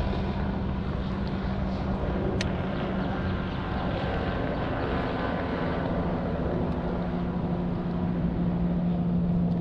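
Boat motor running steadily, a low hum with a steady tone that drops a little in pitch about six seconds in.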